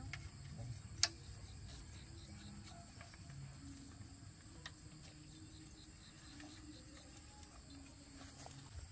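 Faint, steady high-pitched chirring of insects, with one sharp knock about a second in.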